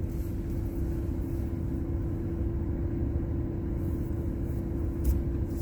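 Engine and road rumble heard from inside a moving car or truck, with a steady hum and a brief click about five seconds in.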